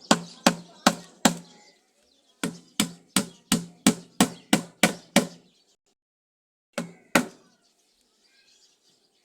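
Hammer blows on wood in three runs: four strikes, then about nine at roughly three a second, then two more near the end.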